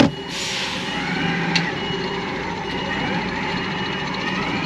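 HGV tractor unit's diesel engine running with a steady low rumble, heard inside the cab as the truck manoeuvres slowly. A sharp click at the start is followed by a short hiss, and a high beep repeats at intervals.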